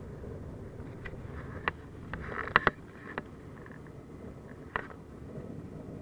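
Steady low drone of a turboprop airliner's engines and propellers heard inside the passenger cabin. Over it come a few sharp clicks and knocks between about one and five seconds in, the loudest about two and a half seconds in.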